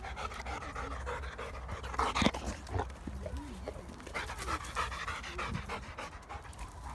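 A Labrador retriever panting after about twelve minutes of nonstop running, with a sharp knock about two seconds in.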